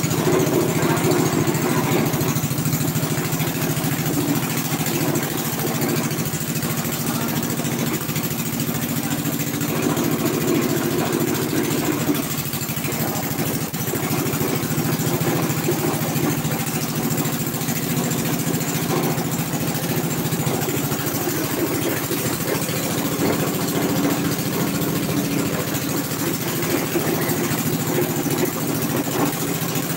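Engine of a small walk-behind double-drum road roller running steadily.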